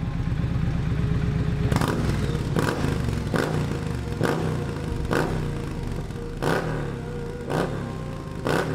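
Motorcycle engine being revved in repeated throttle blips over a steady idle, with a sharp crack at each blip roughly once a second.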